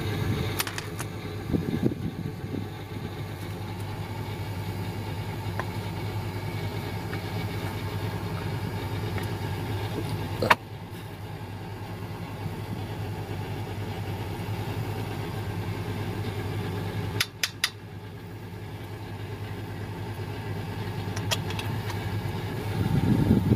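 An engine running steadily at idle, with a sharp click about ten seconds in and a few more clicks of metal parts being handled later on.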